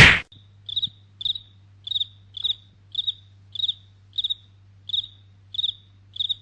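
Cricket chirping sound effect: one short pulsed chirp repeating steadily about twice a second over a faint low hum, opening with a sharp loud click.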